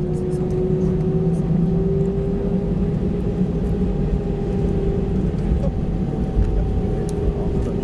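Cabin noise of an Airbus A320-214 rolling on the ground just after touchdown, heard from a seat over the wing: its CFM56 engines run at idle with a steady whine that rises slightly, over a continuous low rumble.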